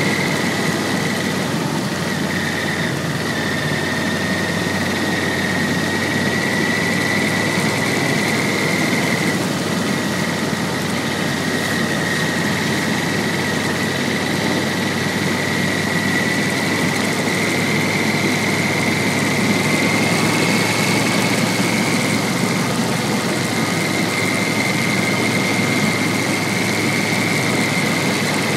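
Yamaha VMAX1200's V4 engine running steadily under way, mixed with heavy wind rush over the onboard microphone. A thin, steady whistle sits above it.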